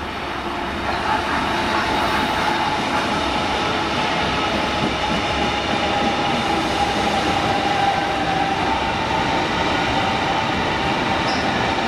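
Berlin S-Bahn class 481 electric train pulling into a station: the drive gives a steady whine over the rumble of wheels on rails. It grows louder about a second in as the cars roll close past.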